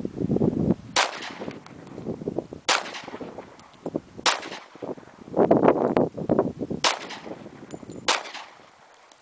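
Five single pistol shots from a Kimber Compact .45 ACP, spaced about one and a half to two and a half seconds apart, with wind on the microphone.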